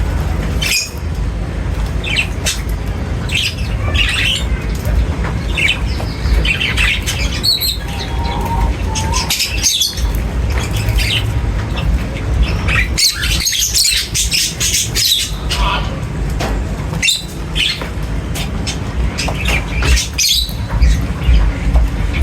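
A flock of birds chirping and squawking at a feeder, many short overlapping calls throughout, over a steady low rumble.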